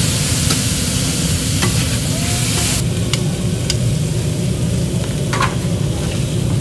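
Gopchang (pork tripe) and vegetables sizzling loudly on a hot flat griddle, liquid bubbling and steaming on the plate. The bright hiss drops away sharply about three seconds in, leaving a lower, steady sizzle, with a few light clicks scattered through.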